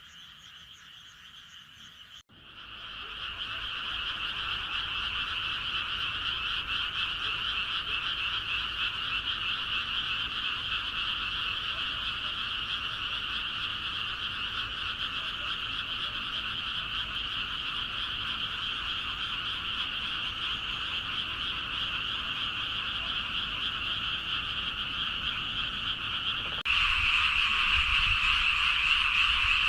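A dense chorus of many frogs calling at once, a steady high-pitched wall of sound at two pitches. A cut about two seconds in brings in a louder chorus, and it jumps louder again near the end.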